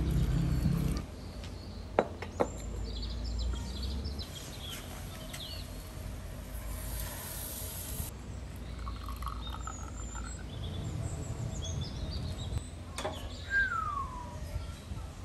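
Small birds chirping on and off over a steady low outdoor rumble, with a falling whistled bird call near the end. Wet handling noise in the first second as hands rub marinade into whole trout, then two sharp clicks about two seconds in.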